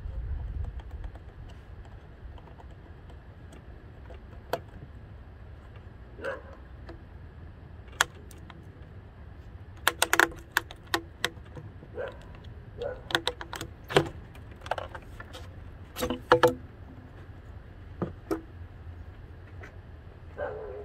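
Hand tools clinking and tapping on metal parts in a car's engine bay: scattered sharp clicks, with a busy run of clinks in the middle.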